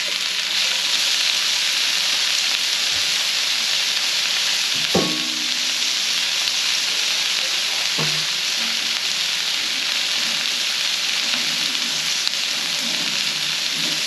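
Chopped bell peppers, onion, garlic and ginger sizzling steadily in hot oil in a skillet. A ringing metal clank about five seconds in and a knock about three seconds later.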